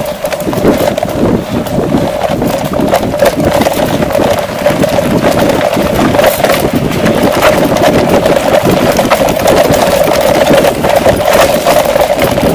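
Mountain bike rolling fast over a rough dirt and stone trail, heard through a camera mounted on the bike: tyres crunching and the bike clattering and rattling constantly over the bumps, with a steady hum underneath.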